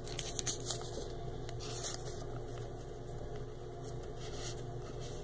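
A Pokémon trading card being slid into a plastic card sleeve: faint, scattered rustles and scrapes of card against plastic over a steady low hum.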